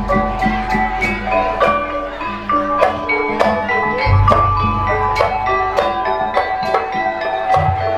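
Live Sundanese gamelan music accompanying ronggeng dance: metal-keyed mallet instruments ringing out a busy melody over sharp percussion strokes about twice a second. Deep, sustained bass notes swell about four seconds in and again near the end.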